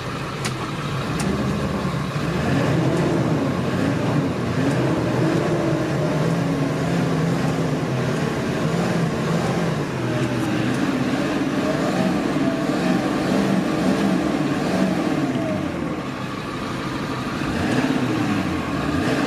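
Ford bus engine running, heard from inside the cab, its pitch rising and falling again and again.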